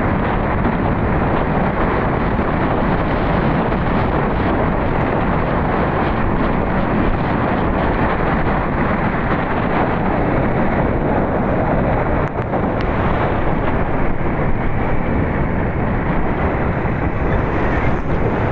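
Wind rushing over the microphone of a riding motorcycle, a loud steady rush with the bike's engine and road noise buried underneath.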